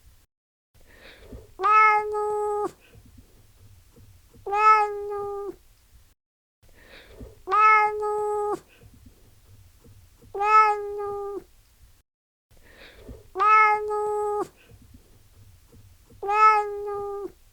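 Domestic cat meowing over and over: the same drawn-out meow about every three seconds, each about a second long and holding a steady pitch.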